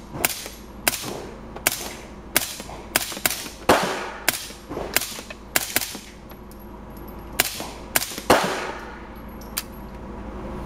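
Integrally suppressed Heckler & Koch MP5-SD 9mm submachine gun fired in semi-automatic: about a dozen single shots at an uneven pace, with a pause partway through. Each shot is a sharp crack echoing off the concrete of an indoor range, and two of them are louder with a longer echo.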